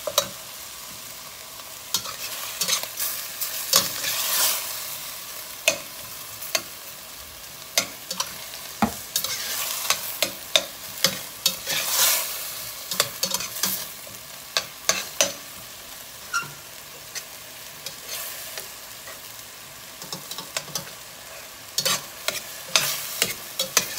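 Metal slotted spatula scraping and clinking against a stainless steel pot while stirring diced chicken in sauce, over a steady low sizzle. The scrapes come irregularly, thinning out for a few seconds after the middle.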